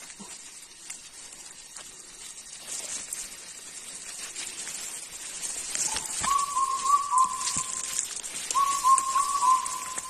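Dry grass and leaves rustling and crackling as people push through vegetation. From about six seconds in, short clear whistled notes come in quick phrases of four or five, repeated twice.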